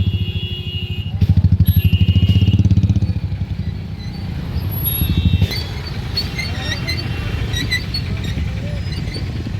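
A motor engine running with a fast low throb, strongest for the first three seconds and then settling into a steadier rumble. Short high chirps sound over it in the second half.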